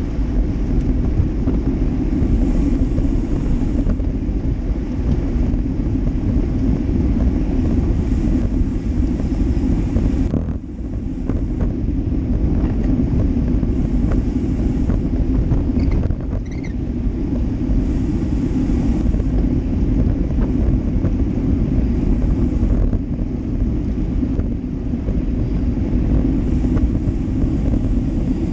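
Steady wind rumble on the microphone of a GoPro Hero Session riding on a road bike at speed in a cycling bunch, with a brief lull about ten seconds in.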